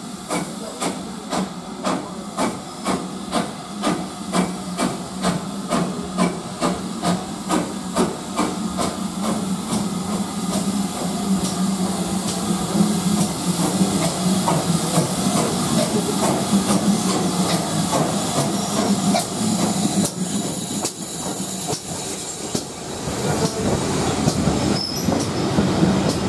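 Steam locomotive arriving slowly with its train, steam hissing and a regular beat about twice a second that fades out about halfway through. Near the end its wooden carriages roll past close by with a rising clatter of wheels on rail.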